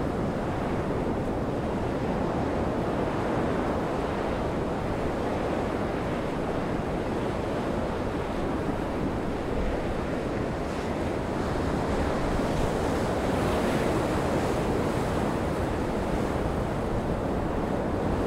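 Heavy storm surf breaking against rocks in a gale: a steady rush of waves, with the wind buffeting the microphone.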